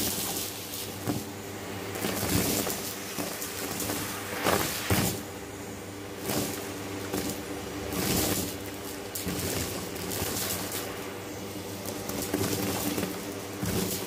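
Hoover Breeze Evo vacuum cleaner running with a steady motor hum while its bare wand sucks up sequins, pom-poms and stuffing from a carpet. Short surges of hissing noise come several times as clumps of debris are drawn into the tube.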